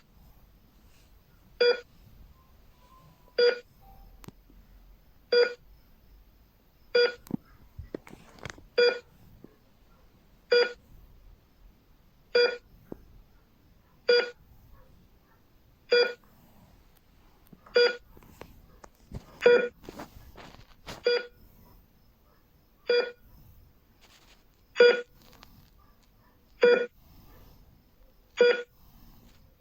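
Hospital heart rate monitor beeping once per heartbeat: a short, clear electronic beep about every second and three-quarters, with a few fainter clicks in between some beeps.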